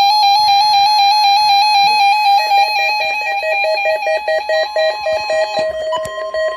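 Electronic alert alarms of weather radio receivers going off together: a fast warbling high tone, joined about two seconds in by a rapidly pulsing lower beep. Near the end the warbling alarm stops and a steady single tone begins.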